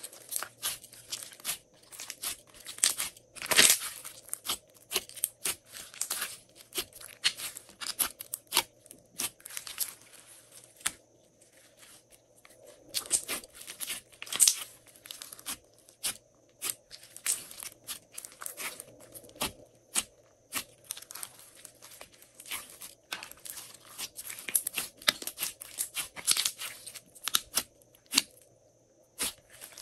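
Hands squeezing, stretching and folding a large lump of glossy slime, making irregular wet clicks and crackling pops, with brief lulls between handfuls.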